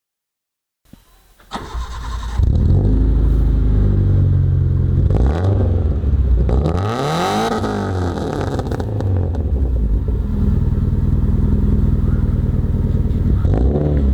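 Modified Maruti Suzuki Gypsy with a full aftermarket exhaust system starting up about a second and a half in, then idling loudly. Midway it is revved up and let fall back.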